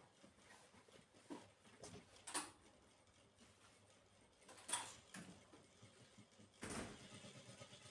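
A few faint, scattered clicks and light knocks from handling, about six in all, with the longest near the end, over a quiet room.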